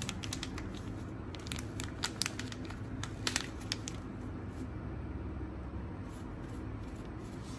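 Light clicks, scrapes and rustles from spooning coconut milk powder out of its packet, a cluster in the first few seconds then only a few, over a faint steady hum.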